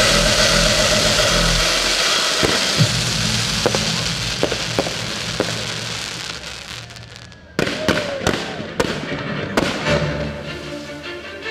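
Fireworks going off during a pyromusical: a loud rushing hiss fades away while sharp bangs sound every second or so, then a quick cluster of louder bangs comes about eight seconds in. Music plays underneath and comes back in more clearly near the end.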